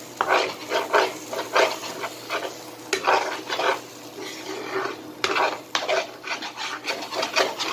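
Sardines and eggs frying in a pan, sizzling while being stirred, the utensil scraping against the pan in repeated irregular strokes, a few a second.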